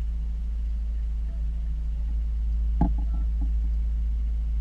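Boat engine running steadily at trolling speed, a low even drone. About two-thirds of the way through there is a single sharp knock.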